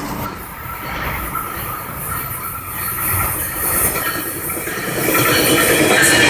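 A train running along the rails, growing louder about five seconds in as it draws closer.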